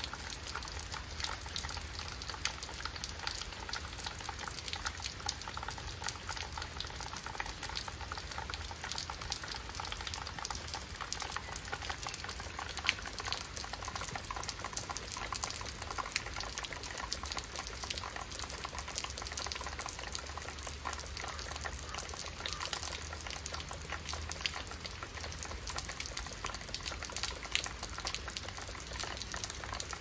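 Steady rain falling on leaves and wet rock: a dense, even stream of many small drop hits with no letup.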